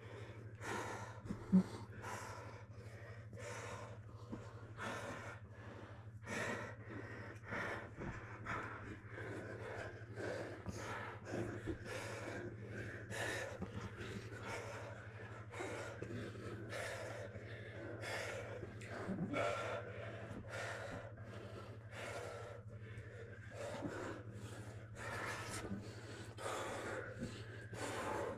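Grapplers breathing hard and fast in short, irregular gasps, about two or three a second, over a steady low hum.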